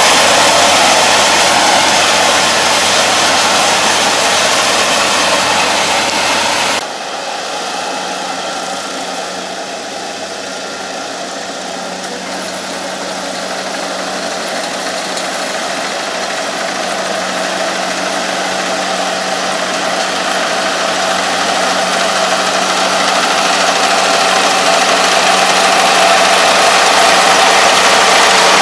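Kubota ARN460 combine harvester running steadily while cutting rice, its engine and machinery a continuous drone. About seven seconds in, the sound drops suddenly to a more distant level, then grows slowly louder as the combine comes closer.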